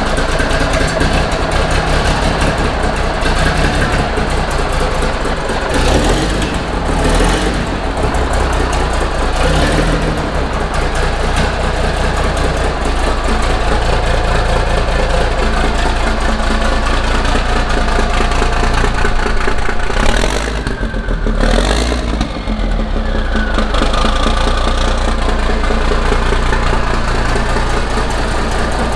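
International 9370 semi truck's diesel engine running with no mufflers, exhausting straight out the sides, at its first start after restoration. It runs steadily, with a brief dip about 20 seconds in.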